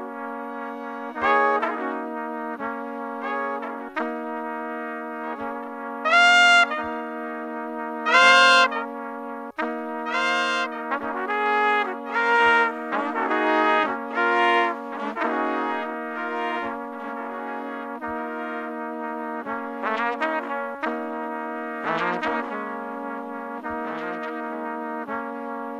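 Instrumental background music: a melody of separate held notes over a steady low sustained chord, with two loud high notes about six and eight seconds in.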